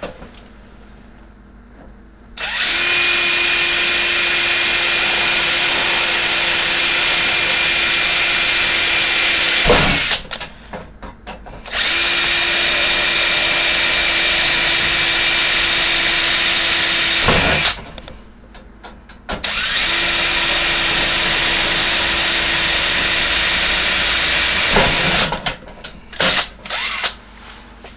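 Cordless drill with a 3/32-inch bit drilling pilot holes through the sheet-metal cover of a breaker panel, in three steady runs of several seconds each at an even pitch, each ending in a short wind-down as the trigger is let go. Light handling clicks and knocks fall between the runs and near the end.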